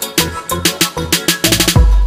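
Background music with a fast, steady drum beat; a deep bass note comes in near the end.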